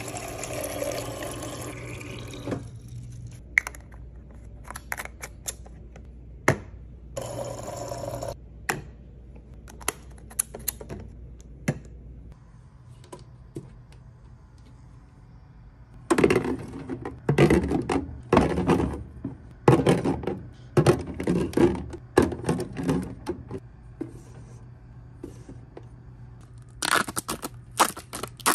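Drinks and snacks being handled and set into a mini fridge: a run of sharp clicks, knocks and scrapes, thickest in the second half. A short hiss of rustling comes near the start and again about seven seconds in, over a low steady hum.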